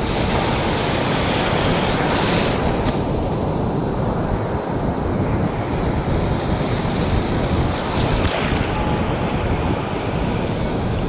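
Sea waves washing in, with wind buffeting the microphone in a heavy, steady rumble. The wash swells about two seconds in and again about eight seconds in.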